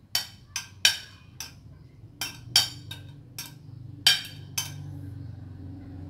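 Metal spoon knocking and clinking against glass bowls, about ten sharp irregular strikes, as shredded chicken filling is scooped and scraped into a glass baking dish.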